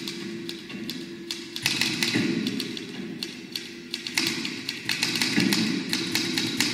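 Irregular clicking and tapping over recurring swells of rustling noise, with a faint steady hum underneath.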